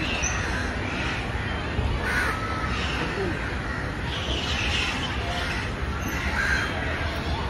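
Crows cawing several times, with short calls every second or so, over a steady low background rumble.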